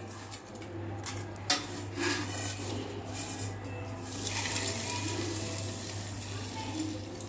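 Dry roasted whole spices and bay leaves rustling and rattling as they are handled and then poured from a steel bowl into a mixer-grinder jar, with a few clinks of steel, the sharpest about a second and a half in. A steady low hum runs underneath.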